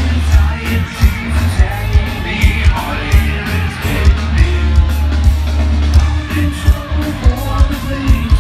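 Heavy metal band playing live through a large festival PA: heavy bass and a pounding drum beat, with a singer's voice over the top.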